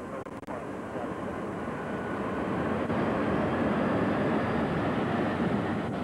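Jet aircraft engine noise: a rushing sound that swells over a few seconds and eases off near the end.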